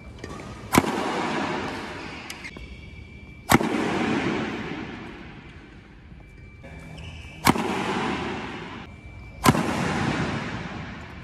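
Badminton smashes with Yonex racquets: four sharp cracks of racquet strings striking a shuttlecock, about three, four and two seconds apart, each followed by a long tail that fades over two to three seconds.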